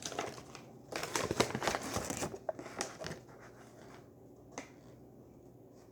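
GAN speedcube being turned fast: a quick run of plastic clicks and clacks about a second in, then a few single turns, the last one sharp.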